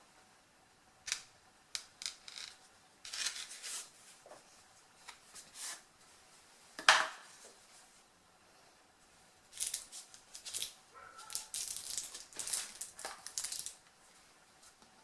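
Packaging being handled during an unboxing: short bursts of rustling and scraping, with one sharp knock about seven seconds in and a busier stretch of crinkling and scraping from about ten seconds.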